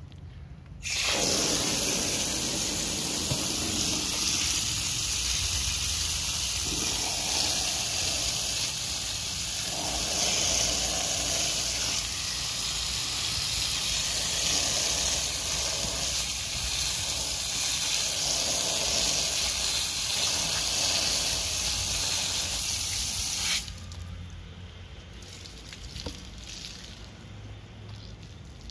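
Running water gushing and splashing over a foam air filter element held under the stream as it is rinsed of soap. It starts about a second in and cuts off suddenly about five seconds before the end.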